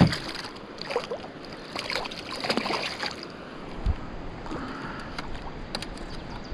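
Walleye on a rope stringer splashing and thrashing at the water's surface beside a canoe, in irregular bursts over the first three seconds. A sharp knock comes right at the start, and a dull thump comes near four seconds.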